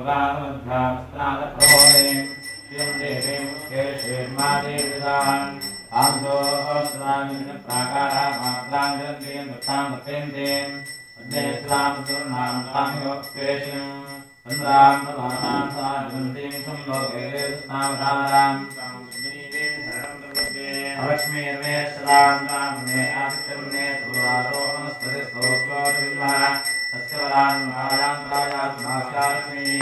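A priest chanting Sanskrit mantras, with a puja hand bell rung continuously from about two seconds in, a steady high ringing over the chant.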